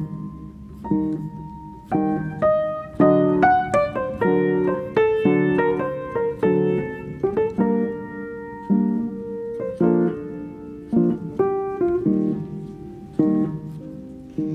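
Background piano music: struck chords and a melody, each note dying away before the next.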